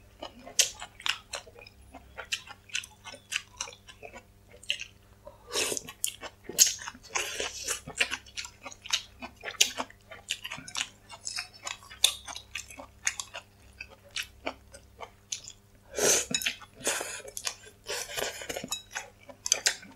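Close-miked chewing of noodles and crunchy bean sprouts, with many short wet mouth clicks. Longer, louder slurps of noodles come about six seconds in and again about sixteen seconds in. A faint steady hum runs underneath.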